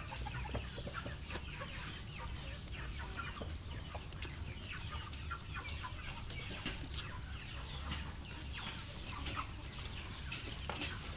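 Chickens clucking: a scattered run of short clucks over a low steady rumble.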